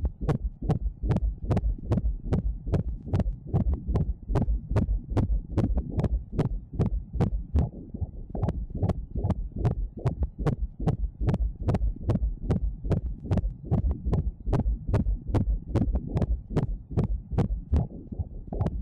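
Fetal heartbeat heard through an ultrasound Doppler: a fast, even train of pulses, about two and a half beats a second.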